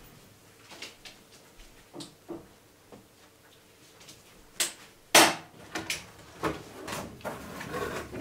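Staple gun fastening a plastic PVC wall panel at its bottom edge: scattered light clicks, then several louder sharp snaps about five seconds in, with plastic panel rattling near the end.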